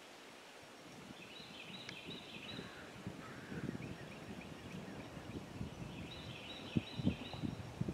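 Wild turkeys calling: two bouts of quick, repeated notes, one about a second in and another about six seconds in. Faint rustling and a few soft low thumps sound close by.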